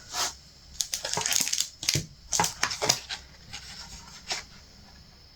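Irregular clicks, rattles and rustling of a retractable tape measure being fetched and its metal blade pulled out, stopping about a second before the end.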